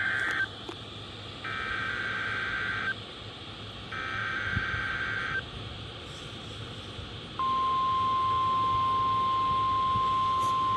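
NOAA Weather Radio Required Weekly Test: the SAME header's rasping digital data bursts, about a second and a half each. The first is just ending, then two more follow. About seven seconds in, the loud, steady 1050 Hz warning alarm tone starts.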